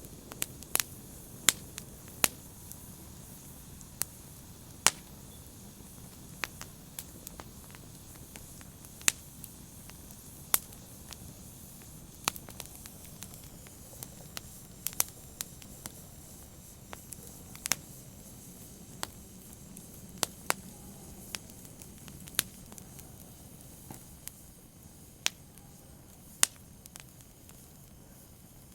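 Wood fire crackling: sharp irregular pops and snaps over a low steady hiss of burning.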